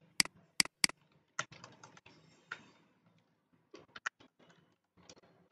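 Computer keyboard typing: single keystrokes in short irregular runs with pauses between them, the sharpest three clicks in the first second.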